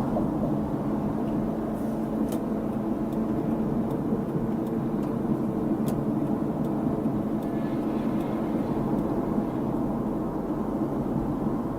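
Steady engine and road rumble heard inside a moving car's cabin, with a couple of faint clicks.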